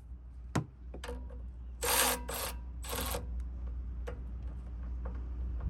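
Milwaukee M12 FUEL high-speed 3/8-inch cordless ratchet run in three short trigger bursts, after a single sharp click.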